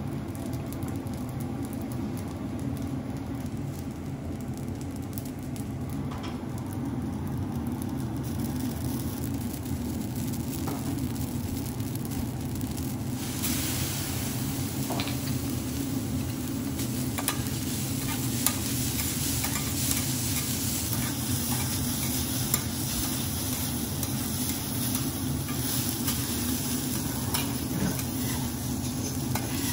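Fried rice sizzling on a steel teppanyaki griddle over a steady low hum; the sizzle grows louder about halfway through as sliced green onions go onto the rice. A metal spatula scrapes and ticks against the plate now and then.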